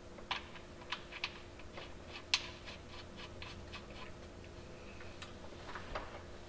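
Light, irregular metallic clicks and taps, a dozen or so, as the transfer case drain plug and its washer are threaded back in by hand; the sharpest click comes about two and a half seconds in.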